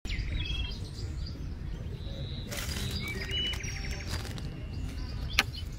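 Open-air park ambience: a steady low rumble with scattered high chirps and whistles. A single sharp click comes about five and a half seconds in.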